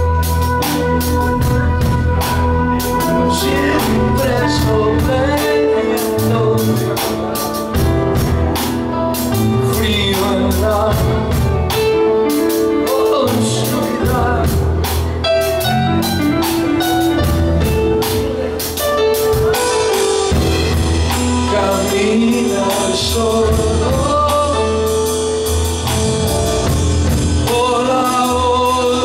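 Live progressive rock band playing, with drum kit, bass guitar, electric guitar and Yamaha Motif synthesizer keyboard, and a man singing lead.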